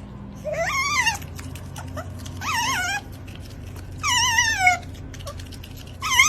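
A dog whining in four drawn-out, wavering cries, each lasting about half a second to a second, with pauses between.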